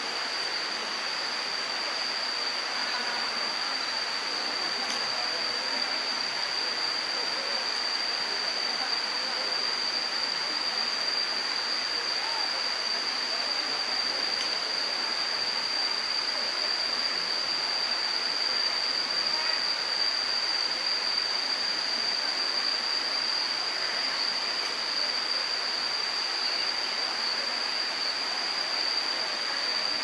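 Steady rushing of flowing water, an even hiss with a constant high-pitched tone over it.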